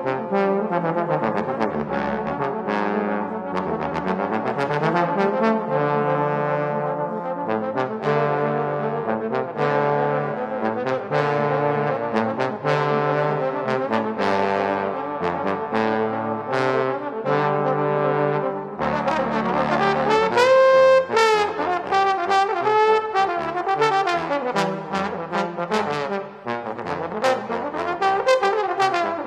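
Trombone quartet, including a bass trombone, playing an ensemble piece in close harmony over a repeated low-note pattern. About two-thirds of the way through, a high held note rises above the ensemble, followed by gliding slide notes.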